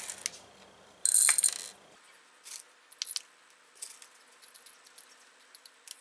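Small pebbles clattering as they are scooped and dropped into a small clear plastic cup: a short burst of rattling about a second in, then scattered single clicks of stones landing.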